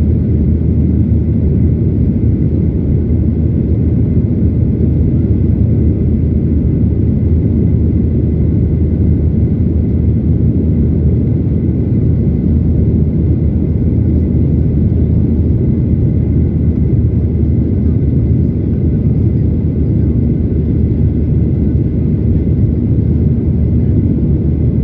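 Steady cabin roar of a Boeing 737 in flight, heard inside the cabin beside the wing: deep, even engine and airflow noise with a faint steady high whine above it.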